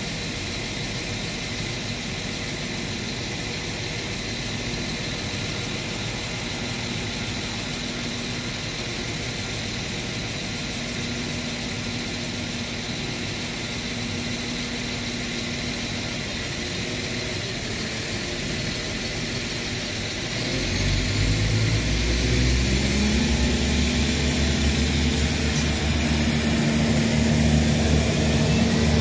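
NI Railways Class 4000 diesel multiple unit idling at the platform. About twenty seconds in, its engines power up and grow louder with a rising pitch as the train pulls away and gathers speed.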